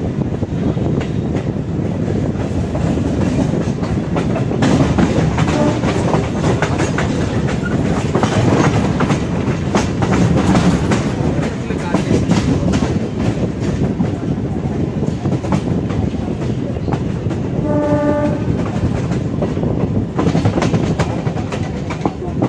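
Running noise heard from the open doorway of a moving electric suburban train (EMU): wheels clattering over rail joints and points, with a steady rush. A train horn sounds briefly about eighteen seconds in and again right at the end, with a faint short toot at about five and a half seconds.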